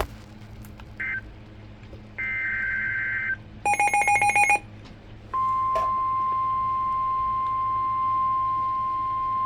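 Emergency alert tones. About a second in comes a short buzz of digital data tones, the SAME header, and a longer one follows at about two seconds. Then a rapid burst of beeps, and from about five seconds the steady 1050 Hz NOAA Weather Radio warning alarm tone.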